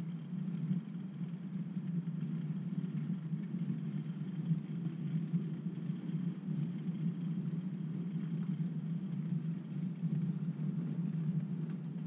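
OO gauge model goods train, a model steam locomotive hauling vans and a brake van, running along the yard track: a steady low rumble of wheels on rails and the locomotive's motor.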